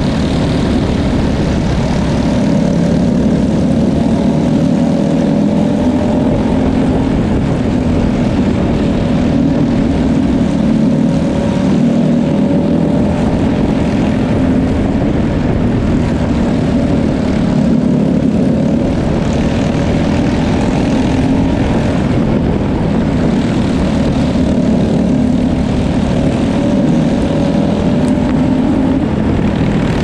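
A Briggs & Stratton LO206 kart engine, a 206 cc single-cylinder four-stroke, running hard and close up as the cadet wing kart laps a dirt oval. Its note stays nearly steady, with slight rises and dips in pitch through the lap.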